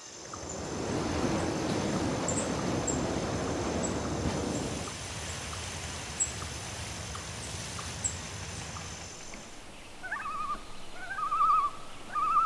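A bird giving repeated wavering, warbling calls in the last few seconds, louder than anything before them. Earlier there is a low rumbling noise for about five seconds and a steady high-pitched buzz that stops shortly before the calls begin.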